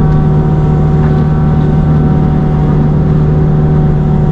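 Kubota U55-4 mini excavator's diesel engine running at a high, steady speed, driving a hydraulic forestry mulcher head through light brush: a loud, unbroken drone with a strong hum.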